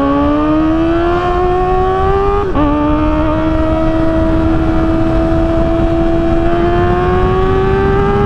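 Kawasaki ZX-4RR's 399 cc inline-four engine pulling under acceleration, heard from the rider's seat, its pitch climbing steadily. About two and a half seconds in, the pitch drops sharply at an upshift, then climbs slowly again.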